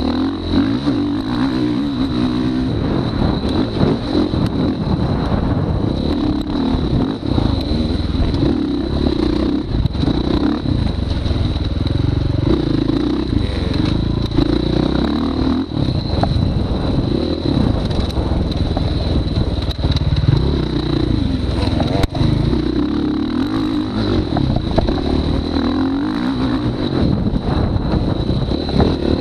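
Dirt bike engine heard from the rider's chest, revving up and easing off again and again around a short dirt track, with wind and rattles mixed in.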